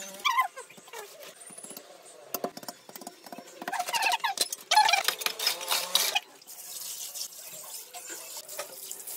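Wet mortar being scooped by hand from a plastic basin: wet slopping and scraping, with scattered clicks and knocks, busiest in the middle.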